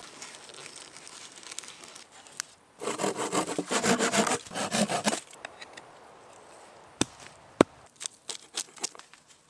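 Hand saw cutting through a small log, a quick run of back-and-forth strokes lasting about two and a half seconds, then several short sharp knocks of wood near the end.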